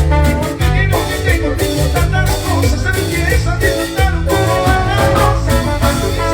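Live band playing Latin tropical dance music during a sound check: heavy bass and a steady beat under melodic instrument lines, with no clear vocal.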